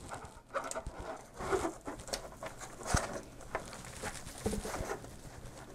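Scattered small clicks and rustles of cables being handled and a plug being pushed into a socket on the back of a car radio head unit, with a sharper click about three seconds in.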